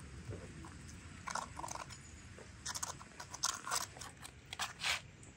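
Fork pressing a pat of butter across hot, crisp-spotted qutab flatbreads on a metal saj griddle: short crunchy scrapes in about four bunches, roughly a second apart.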